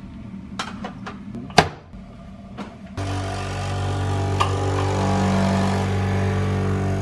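A few sharp clicks, the loudest about one and a half seconds in, then about three seconds in a Krups capsule coffee machine's pump starts a steady hum as it brews a coffee into the cup.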